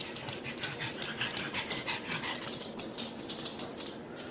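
A dog panting: a quick, steady run of short breathy puffs.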